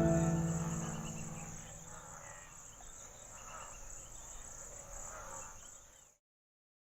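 The final chord of background music fades out over the first two seconds. It leaves crickets faintly chirring with a steady high trill, which cuts off suddenly about six seconds in.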